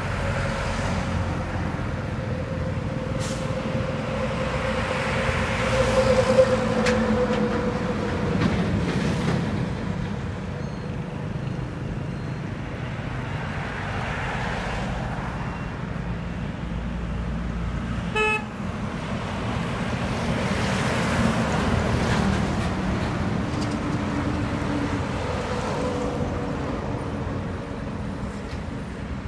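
Highway traffic: trucks and cars passing close by one after another, each swelling and fading over a steady road rumble.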